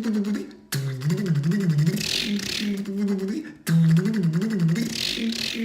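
A man's voice imitating a car engine cranking over without starting: a rhythmic, wavering vocal churn with a hissy breath on top, in two long runs, each cut off sharply.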